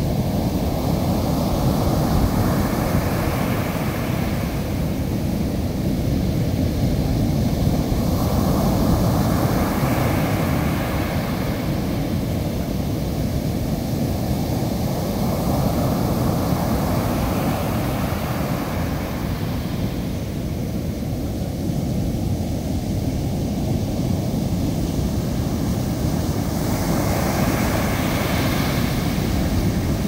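Big waves breaking on a sandy beach in a rough sea: a steady rumble of surf, swelling louder with each set of breakers every several seconds.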